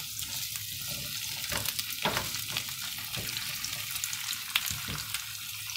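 Carrots, potatoes, pearl onions and garlic sizzling as they sauté in oil in a frying pan, stirred with a silicone spatula, with a few soft scrapes against the pan.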